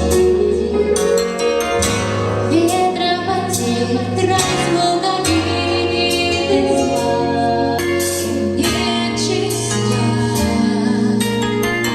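A song played with a full backing track: a bass line changing note every second or two under a steady beat, with a female voice singing.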